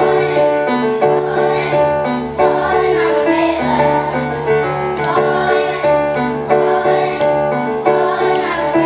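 Music with a steady beat, with some singing.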